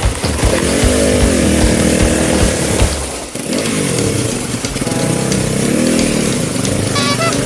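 Off-road motorcycle engines running, their pitch rising and falling with the throttle. After a break about three seconds in, several trail bikes run together at idle with light revs.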